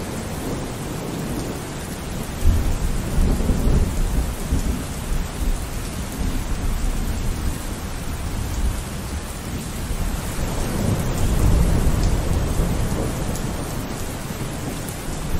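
Tropical cyclone wind and heavy rain: a steady rush of rain and wind through trees. Low rumbling gusts batter the microphone about two and a half seconds in and again around ten seconds.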